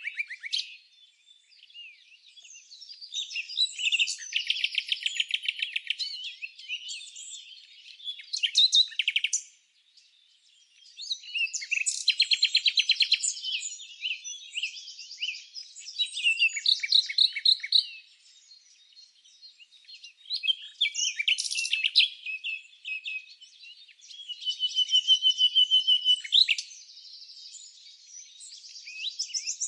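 Small songbirds chirping and singing: phrases of rapid trills and high twitters a few seconds long, with short pauses between them, and a steady thin whistle a little before the end.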